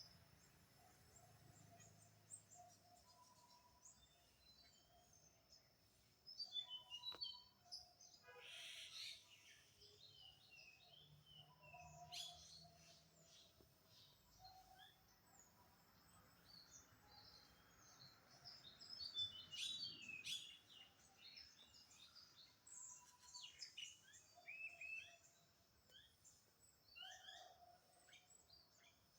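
Several birds chirping and calling, faint overall, with a flurry of quick high chirps about six seconds in and another busier spell around two-thirds of the way through.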